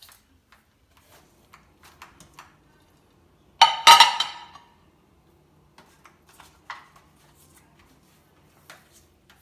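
A white plastic cutting board set down on a stone kitchen counter with one sharp clatter about three and a half seconds in. Around it are soft handling noises from hands patting seasoning onto a raw turkey.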